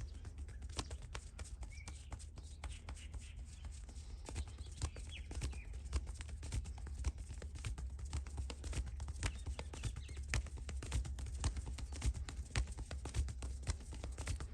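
Massage hands tapping and slapping in quick percussive strokes on a person's body, several irregular taps a second, getting busier a few seconds in.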